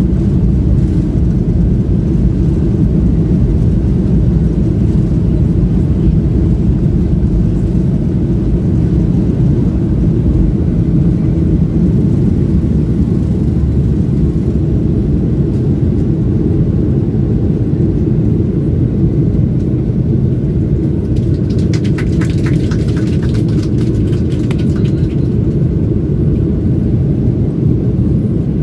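Jet airliner's takeoff roll and liftoff heard from inside the cabin: a loud, steady low rumble of the engines at takeoff power and the wheels on the runway. A few seconds of rattling clicks come about three-quarters of the way through.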